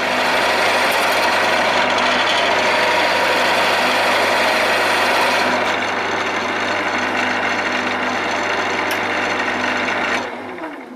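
Wood lathe running with a steady motor hum while a chisel, presumably a skew, cuts the spinning wooden leg blank to a taper. Near the end the lathe is switched off and winds down, the hum falling in pitch as it stops.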